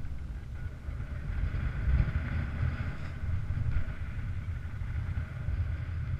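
Wind rushing over the camera microphone of a paraglider in flight, a steady low rumble that swells and eases a little.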